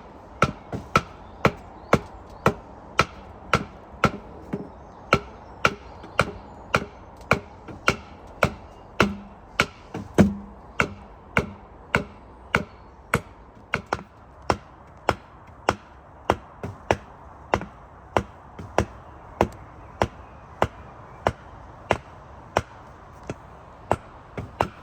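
A steady run of sharp knocks, about two a second, evenly spaced and continuing without a break.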